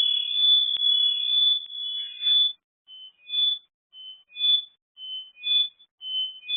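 Electronic alarm sounding: a steady high tone for about two and a half seconds, then short high beeps at three alternating pitches, a couple per second.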